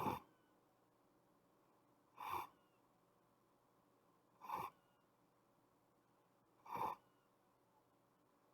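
A sleeping person's breathing noises: four short, pitched breath sounds in a row, evenly spaced about two and a quarter seconds apart.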